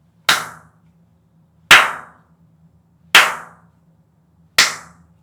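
Four loud hand claps, evenly spaced about a second and a half apart, each with a short room echo: a peak-level test, the loudest reaching close to full scale.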